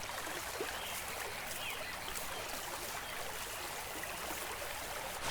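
Faint, steady water ambience: an even, gentle rush of flowing water.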